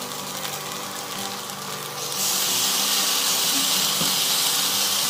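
Chopped onions and green chillies sizzling in oil in a non-stick pan on an induction cooktop, over the cooktop's steady hum. About two seconds in, the sizzle becomes louder and hissier as soy sauce goes into the pan.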